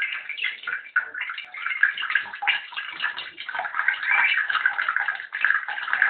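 Budgerigar chattering and warbling without a break, a dense run of quick notes.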